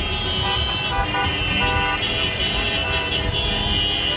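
Many car horns honking at once, overlapping and held, over street traffic and crowd noise: celebratory honking by fans' cars.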